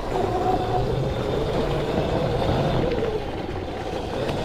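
Surron Light Bee X electric dirt bike's motor whining as it rides along the trail, its pitch shifting slowly with speed, over a steady rushing noise.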